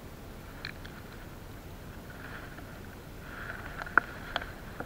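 Handling noise while dealing with a freshly caught fish on concrete: a few sharp clicks and taps, the loudest about four seconds in, followed by two smaller ones, over faint steady background noise.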